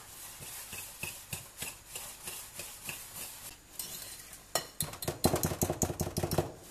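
Wire whisk beating ricotta, sugar and potato starch in a glass bowl, its wires clicking and scraping against the glass. The strokes are slow and irregular at first, then become fast and louder about four and a half seconds in.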